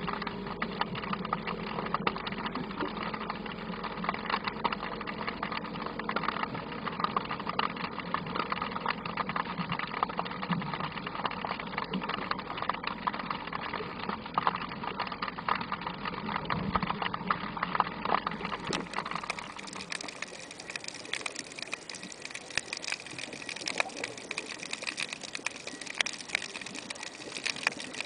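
Underwater ambience heard from inside a camera's waterproof case: dense crackling and ticking over a steady low hum, which fades about two-thirds of the way through.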